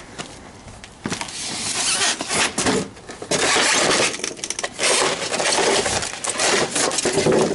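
Packing material crackling and tearing, a dense run of sharp crackles, as the fridge is pulled free of its packaging. It starts about a second in.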